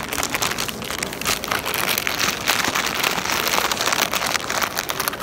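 Plastic crisp bag crinkling and crackling as it is folded and rolled shut by hand, in a dense run of crackles.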